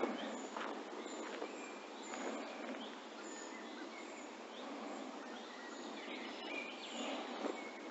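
Birds chirping with many short high calls scattered through, over a steady hiss of outdoor background noise.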